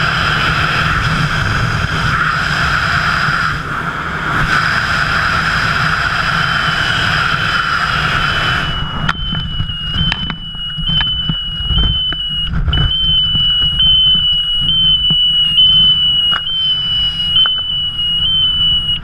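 Rush of wind on a wingsuit flyer's helmet camera during flight. About nine seconds in, the upper rushing noise falls away, leaving a low buffeting rumble, a steady thin high whistle and a scattering of sharp clicks.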